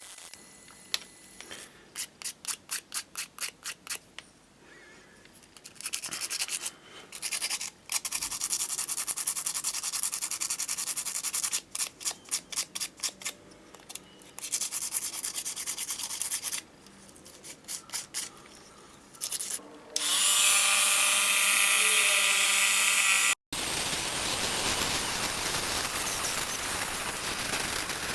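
Hand sanding or rubbing strokes, in runs of quick back-and-forth strokes, about five a second, and longer stretches of steady scrubbing. About two-thirds of the way through, a steady whine with a fixed pitch, the loudest sound, runs for about three seconds and cuts off suddenly; a steady hiss follows.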